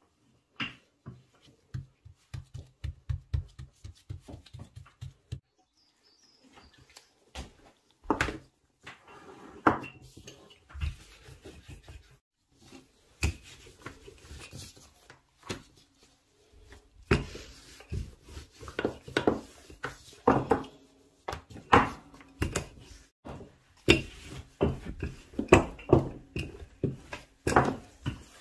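Wooden rolling pin working a sheet of dough on a countertop: a quick run of low thuds for the first few seconds, then irregular knocks and taps as the pin is rolled, lifted and set down and the dough is handled.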